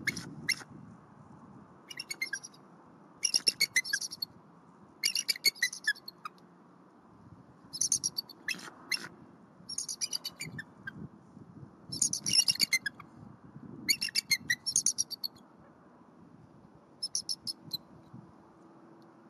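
A pair of bald eagles giving high-pitched, chattering alert calls. The calls come in about ten bouts of quick piping notes, one every second or two, and stop near the end.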